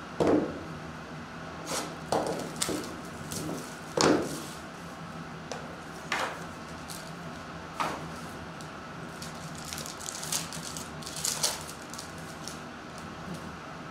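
Handling of a cardboard trading-card hobby box, with a series of short knocks and taps as it is set down and its lid opened. Near the end, a foil card pack is torn open with a burst of crinkling.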